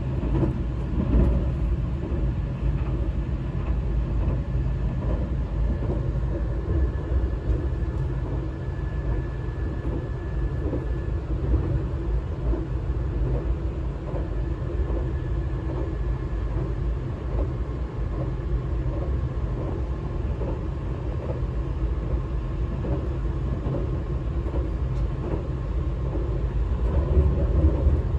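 Tobu 200 series limited express running at speed, heard inside a motor car: a steady rumble of wheels on rail and the DC traction motors under field-added excitation control. A faint high whine comes and goes twice.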